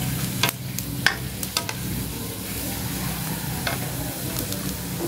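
Metal ladle stirring bitter gourd in a wok of simmering coconut milk, with a few sharp clinks of the ladle against the pan over a steady sizzle.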